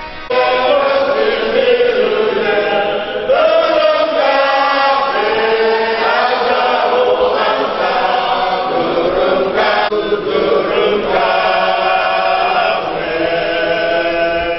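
A church congregation singing a hymn together, many voices in a slow chant-like melody.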